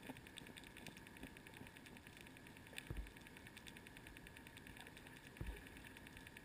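Near silence picked up by a GoPro Hero2 sealed in its underwater housing on the sea floor. There is a faint, fast, even ticking, and two dull low thumps come about three and five and a half seconds in.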